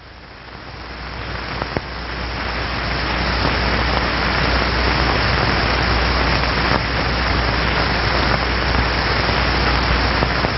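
Wind machine blowing a steady rush of air with a low hum underneath. It swells over the first few seconds, then holds steady.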